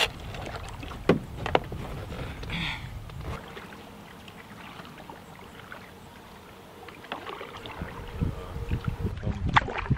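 A canoe being paddled: wooden paddle strokes in the water, with a few sharp knocks of a paddle against the canoe in the first couple of seconds and again near the end.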